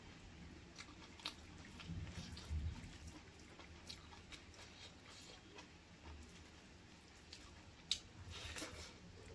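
A person chewing and biting chicken feet and gizzard curry with rice, close to the microphone: scattered small clicks and soft wet mouth sounds, with one sharp click about eight seconds in.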